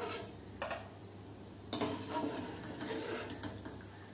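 Metal spoon clinking and scraping against a metal kadhai as fried shankarpali are scooped out of the oil and tipped onto a plate. Two short clinks in the first second, then a longer stretch of scraping and rattling from about two seconds in.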